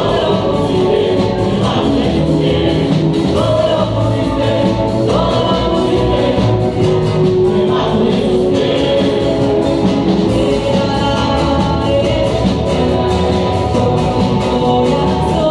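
Mixed church choir singing a hymn together, accompanied by electric bass guitar and acoustic guitar.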